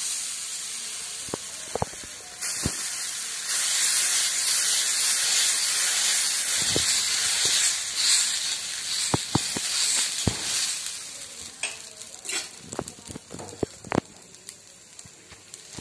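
Adai batter sizzling on a hot iron griddle while a metal ladle spreads it, with scattered scrapes and light taps of the ladle on the pan. The sizzle fades over the last few seconds as the batter settles.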